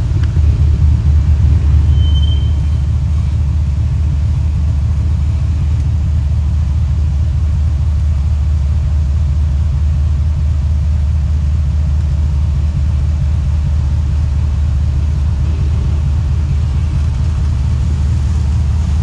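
Jeep engine running, a steady low rumble that is a little louder for the first two seconds.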